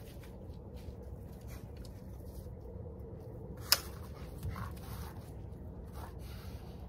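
A single sharp knock about halfway through, struck at a wooden fence post, followed by a few softer knocks and scuffs over a steady low outdoor background.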